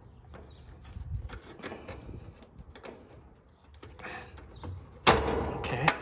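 Small metal clicks and scrapes of needle-nose pliers working a spade connector on an AC run capacitor's terminal. About five seconds in comes a louder scraping rattle, just under a second long, as the fan wire's connector is pulled off the terminal.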